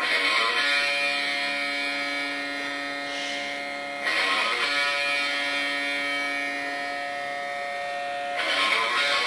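Electric guitar rock music: chords struck three times, about four seconds apart, each left ringing.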